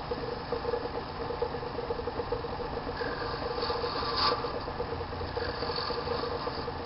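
Small lathe running with a steady motor hum while a hand-held cutting tool scrapes the spinning bone workpiece, turning a chess pawn. The scraping grows louder about three to four seconds in.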